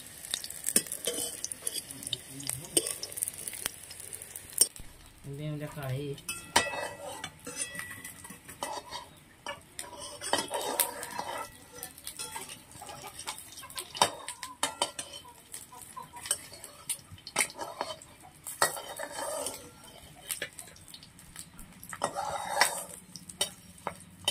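Boiled eggs sizzling and crackling as they fry in an iron wok. After about five seconds this gives way to a metal ladle scraping and clinking against a steel bowl and the wok as curry is scooped.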